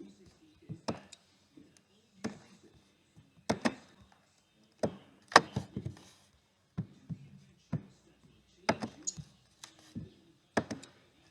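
A series of sharp clicks and knocks, roughly one every second, with short quiet gaps between them.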